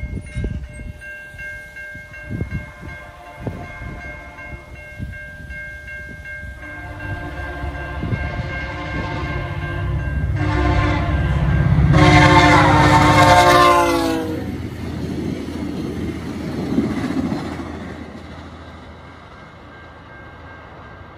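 VIA Rail passenger train approaching and passing at speed. The locomotive horn sounds a long blast, a short one, then a loud long one that drops in pitch as the locomotive goes by, over the rising rumble of the engine and wheels. The rumble fades as the train moves away.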